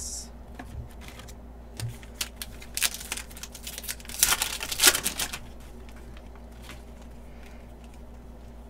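Foil wrapper of a Panini Mosaic basketball card pack crinkling in the hands and then torn open, the tear loudest about four to five seconds in. After that only a faint steady hum remains.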